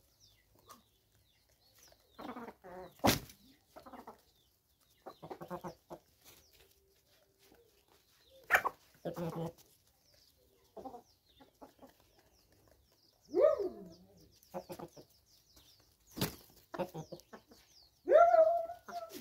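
A flock of free-range hens and roosters clucking on and off, with two longer squawks, one about two-thirds of the way in and one near the end. A few sharp clicks are mixed in.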